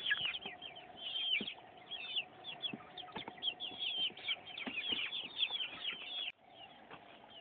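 A flock of young chickens peeping: many short, high calls that slide downward, overlapping one another, with a few faint taps. The sound drops abruptly near the end, and fainter peeps carry on.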